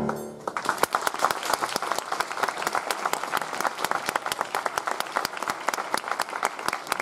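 A concert band's final chord cuts off right at the start, and audience applause begins about half a second later and carries on steadily.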